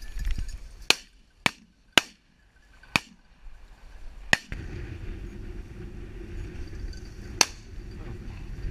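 Shotgun shots at flushing pheasants: six sharp reports, five in quick succession over the first four and a half seconds and one more near the end. Wind rumbles on the microphone through the second half.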